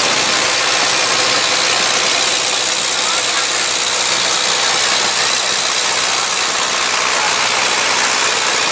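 Boat engine running at a steady speed, an even drone under a constant hiss.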